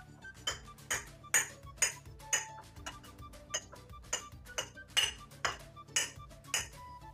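Light clinks and taps of kitchenware on the counter, coming in a fairly even run of about two a second.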